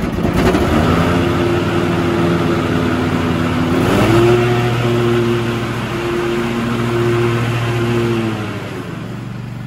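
Husqvarna Z254 zero-turn mower's 26 hp Kohler 7000 Series twin-cylinder engine running as the mower drives and turns. Its pitch rises about four seconds in, holds, then settles back down near the end.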